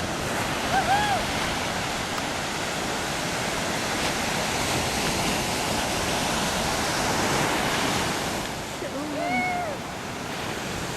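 Steady rushing noise of river water. Two short calls rise and fall in pitch over it, one about a second in and one near the end.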